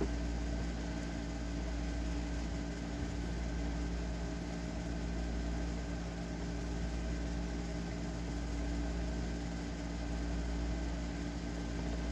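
Steady mechanical hum of a running indoor appliance: a few low held tones over a low rumble, unchanging throughout.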